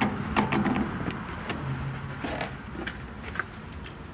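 Light metallic clicks and clinks of tools and metal parts being handled, many in the first two seconds and fewer after, over a low steady hum.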